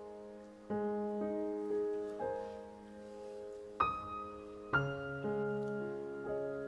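Soft background piano music: slow, sustained chords struck about once a second, with a brighter high note near the middle.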